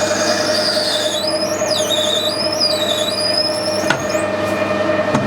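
Metal lathe spindle turning at 440 RPM while a 5mm pilot drill cuts dry into brass hex bar: a steady running hum under a high squeal from the drill that wanders up and down in pitch. A short tick about four seconds in.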